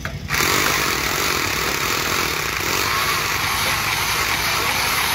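Handheld electric rotary hammer drilling into a concrete slab, starting up about a third of a second in and then running steadily. A low engine rumble runs underneath.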